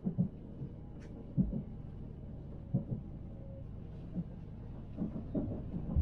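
Steady low rumble heard from inside a moving train carriage, with a few soft knocks along the way.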